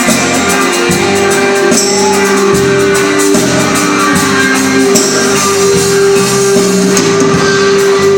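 A live band playing, with guitar, tambourine and a long held note running through most of it.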